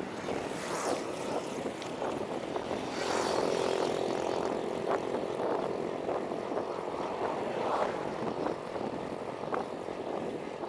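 Wind rushing over the microphone of a cyclist riding along a road, with a steady droning hum from about three to seven seconds in.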